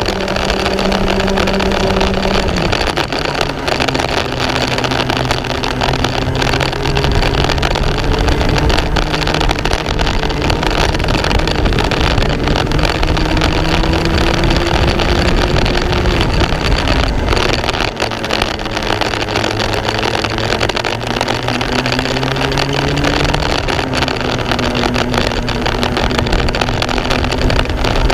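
Racing kart engine heard onboard at race speed, its pitch climbing slowly down the straights and falling sharply three times as the driver brakes or lifts for corners.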